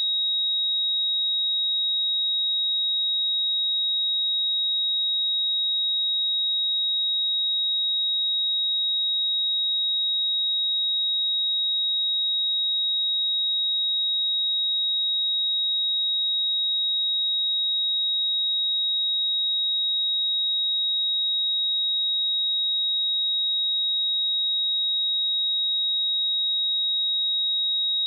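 A pure 3792 Hz sine-wave test tone, a single steady high-pitched pitch held without change.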